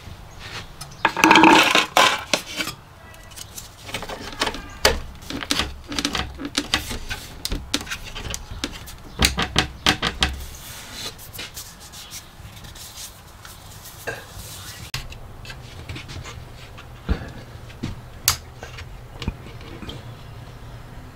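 Irregular clicks, taps and rubbing of hand work as a plastic rocker switch and its cover plate are fitted and pressed into a wooden wall panel, loudest about a second in. The handling thins out to a few single clicks in the second half.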